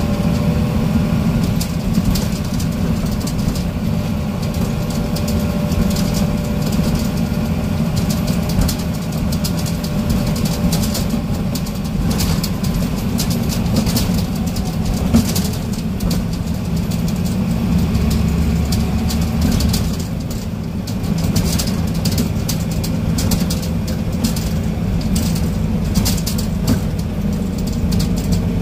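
Scania N94UB bus's diesel engine running, heard from inside the passenger saloon as a steady low drone with faint tones that drift slightly in pitch. Frequent light rattles and knocks sound over it, thickest in the second half.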